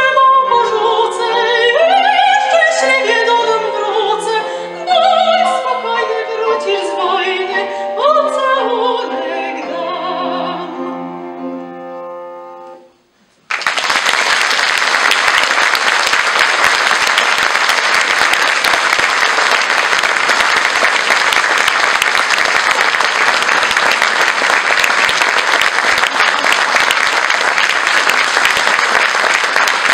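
A girl's solo singing voice with instrumental accompaniment ends a Polish soldiers' song, the music fading out about 13 seconds in. After a brief silence an audience bursts into steady applause that carries on to the end.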